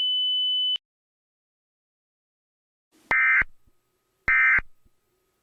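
A steady high-pitched sine tone cuts off just under a second in. After a couple of seconds of silence come short, buzzy Emergency Alert System SAME data bursts, the end-of-message code: two about a second apart, with a third just starting at the end.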